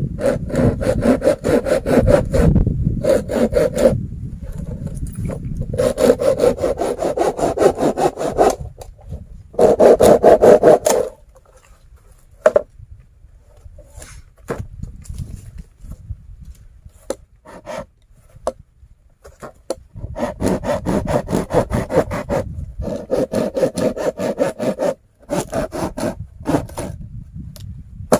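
A hand saw cutting through wood in several runs of quick back-and-forth strokes, with pauses and a few single knocks between the runs.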